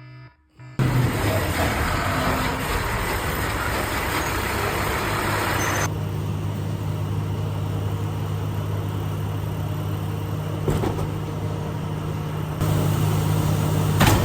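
The last beep of an alarm, then a motor vehicle's engine running with a steady low hum under a loud noise, which changes abruptly twice, about six and twelve seconds in.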